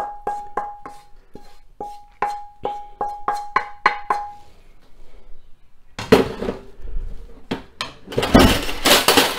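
A wooden spatula tapping and scraping against a metal cooking pan, about three taps a second, each leaving the pan ringing with a steady tone, as cooked vegetable mixture is knocked out of it. From about six seconds in come louder, rougher clattering and handling noises.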